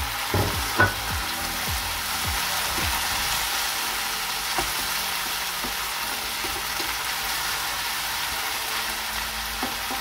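Porcini mushrooms with chopped spring onion and garlic sizzling in a frying pan while a wooden spatula stirs them. There is a steady frying hiss, with a couple of sharp knocks in the first second and light scraping clicks after that.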